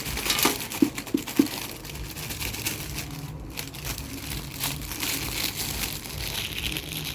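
Crinkling and rustling of Christmas-decoration packaging being handled, with a few light knocks in the first second and a half.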